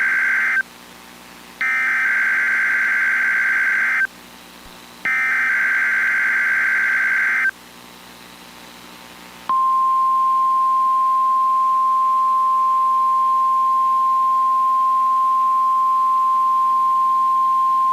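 NOAA Weather Radio SAME alert header: the end of one digital data burst, then two more, each about two and a half seconds long with a short gap between them. These are followed by the weather radio's warning alarm, one long steady tone of about nine seconds, sent as a required weekly test.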